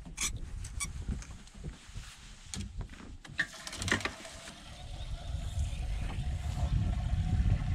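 Scattered clicks and knocks of fish and tackle being handled on a bass boat's deck, then a steady low rumble with a faint hum that grows louder over the last few seconds.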